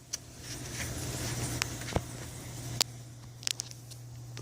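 Air-conditioning equipment running with a steady low electrical hum, and a few light clicks and taps scattered over it.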